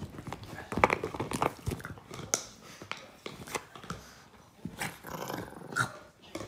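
Small dog biting and pawing at an empty plastic drink bottle: the thin plastic crackles and crunches in quick, irregular clicks.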